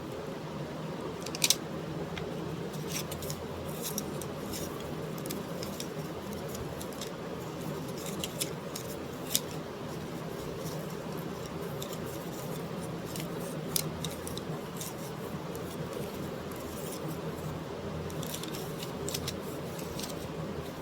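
A steady low hum with scattered sharp clicks and ticks. The loudest click comes about a second and a half in, with others around the middle.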